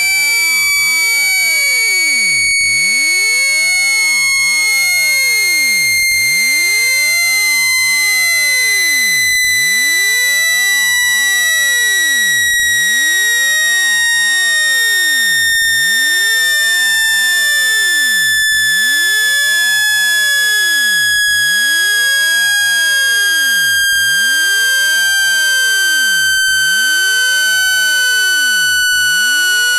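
Synthesized speaker-cleaning tone meant to shake water out of a phone speaker: a loud, steady electronic tone with many overtones, sliding slowly and evenly down in pitch.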